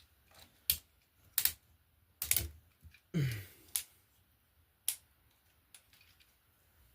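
Sharp, irregular clicks and taps of hard plastic toy parts being handled and set in place, about seven in all, with a short low grunt about three seconds in.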